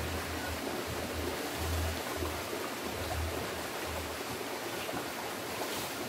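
Steady rushing wind noise outdoors, with low rumbling buffets on the microphone for the first four seconds or so.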